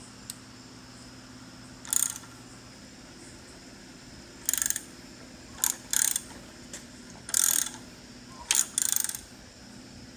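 Hand ratchet clicking in seven short bursts as a 4G63 engine is turned over by hand, rotating its crank and camshafts through the timing belt.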